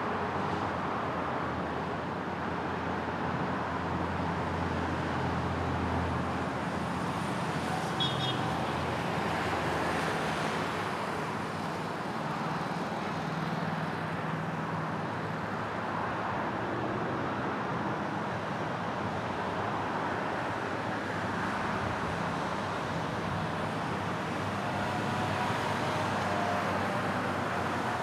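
Steady motor-vehicle noise from motorcycles running past over a constant hum of road traffic, the engine hum swelling and fading as they go by. A brief high chirp sounds about eight seconds in.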